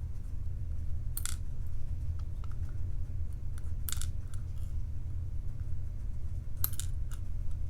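A few separate small metallic clicks and scrapes as a Lockwood padlock's core and pin parts are handled during disassembly, over a steady low hum.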